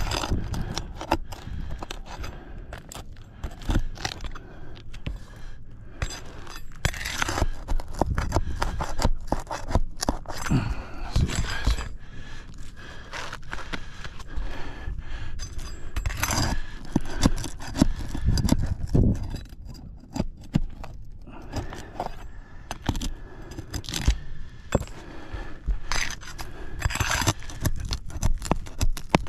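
Brittle asphalt roof shingles being pried up to reach the nails beneath: repeated scraping and crackling of a tool and stiff shingle, with irregular clicks throughout.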